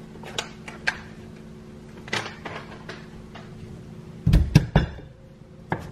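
Kitchen knife chopping garlic cloves on a wooden cutting board: a few light taps, then a quick run of three or four heavy knocks about four seconds in and one more near the end.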